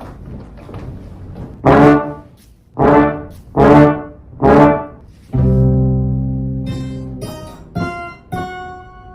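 Trombone-like brass notes played as a comic sound effect: four loud short blasts, then one long held note that fades away slowly, then a few short higher notes near the end.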